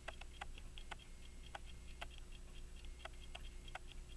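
Faint ticking of a pocket watch's running movement: a run of short, light clicks several times a second, unevenly spaced.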